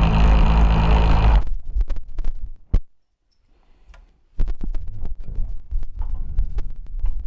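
Power drill running steadily for about a second and a half, then stopping, as a lag bolt is driven into a wall stud to secure a TV mount bracket. A sharp click follows, then brief quiet, then low rumbling handling noise with light knocks.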